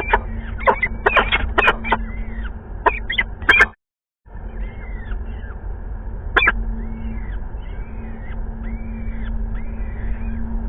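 Peregrine falcons calling at the nest while a chick is fed. Loud, harsh, rapidly repeated calls cut off abruptly a few seconds in, then a run of thin, high calls about once a second, with one sharper call among them.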